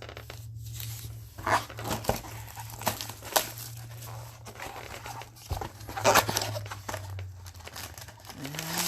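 Trading-card packaging being handled and torn open: crinkling plastic wrapper and cardboard in irregular bursts, over a steady low hum.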